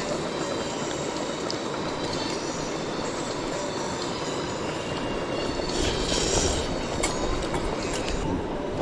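Steady rumble of a passing train, with faint high squealing tones above it.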